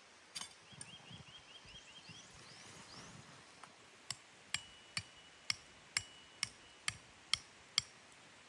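A run of nine sharp knocks, a bit over two a second, each with a short ring, following a fast chirping trill and a few rising chirps near the start.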